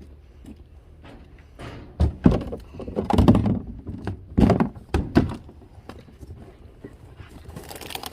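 A run of dull thunks and knocks, about five of them between two and five and a half seconds in, as items and boxes are handled and set down.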